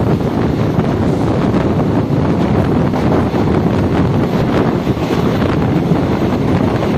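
Wind buffeting the microphone held out at the open door of a moving passenger train coach, a steady loud rush over the coach's running noise.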